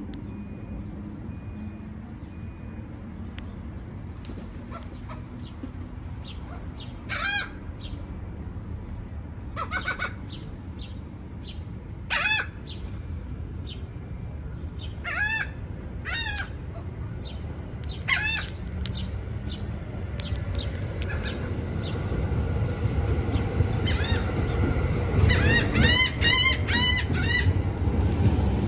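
Gulls calling: short, loud, squealing cries at irregular intervals that crowd into a fast run of calls near the end. Under them a low rumble builds through the second half.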